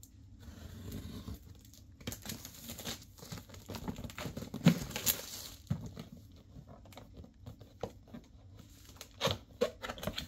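Clear plastic bag crinkling and tearing as a cardboard product box is pulled out of it and opened, with irregular rustles, crackles and taps of the cardboard.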